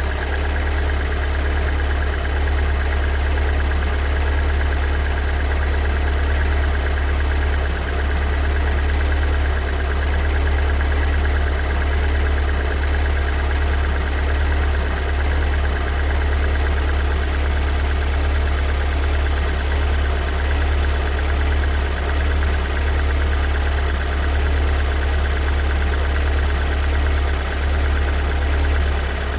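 Kia Sorento 2.2 diesel four-cylinder engine idling steadily shortly after a cold start, with a deep, even hum.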